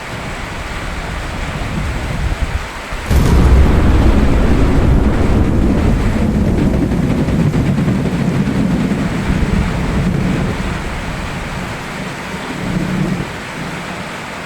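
Steady rain with thunder: a low rumble builds, a sharp thunderclap comes about three seconds in, then a long loud rumble slowly fades, with a smaller swell near the end.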